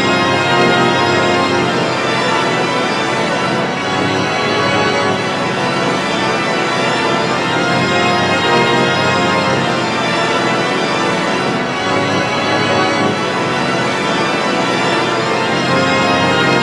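Synthesized Vormulator V6 sound effect: a steady, sustained organ-like chord in G major, many tones stacked together, holding without a break.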